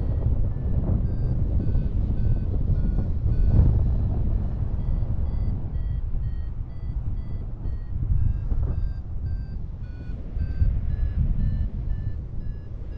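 A run of short beeps, about three a second, that step up and down in pitch like a simple tune, over a loud low wind rumble on the microphone.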